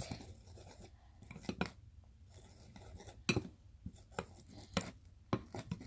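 A clear plastic stirring stick tapping and scraping against the sides of a small clear plastic tub as glue and a pinch of soda are mixed into slime. Irregular light clicks, with a louder tap about three seconds in and another about five seconds in.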